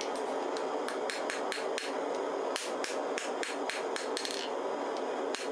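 Hand hammer striking a white-hot billet of spring steel on an anvil: a quick, irregular series of ringing strikes, about three a second, over a steady rushing noise. They are hammer blows of a forge-weld, trying to join two pieces of the billet back together at welding heat.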